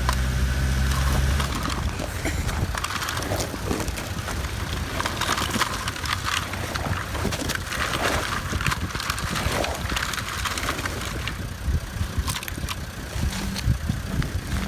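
Plastic toy construction vehicles being pushed and worked through dirt and gravel: scraping and many small clicks and rattles, with a low rumble in the first second or so.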